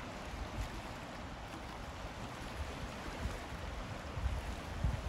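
Steady wash of the sea, with wind buffeting the microphone in low rumbles that are strongest near the end.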